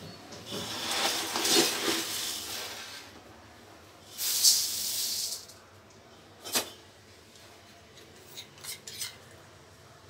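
Puffed rice poured from a steel vessel into a large aluminium pan: a rushing, rustling pour in two spells, the second brighter and hissier. A single knock follows about six and a half seconds in, then a few light clicks near the end.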